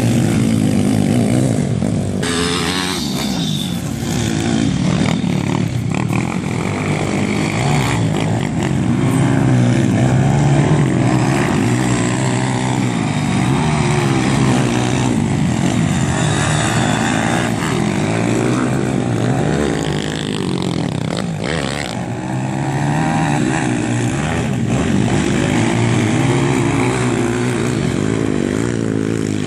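Several 150–160 cc single-cylinder four-stroke pit bike engines racing on a dirt track, their pitch rising and falling over and over as the riders open and close the throttle.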